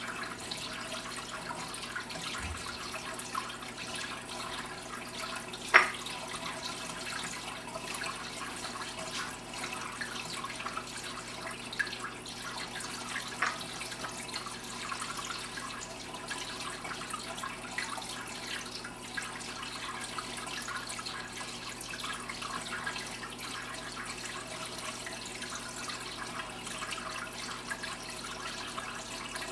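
Steady trickling and splashing of circulating water in an overflow aquarium. A few sharp clicks sound over it, the loudest about six seconds in, as a Japanese pond turtle eats pellets out of a ceramic dish.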